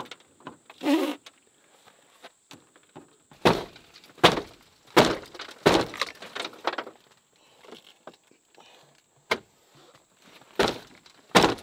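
A series of sharp knocks and thuds at irregular intervals. Several come in quick succession a few seconds in, and two more come near the end.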